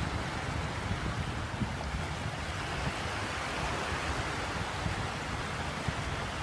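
Small waves lapping and washing onto a pebbly shore, with wind rumbling on the microphone.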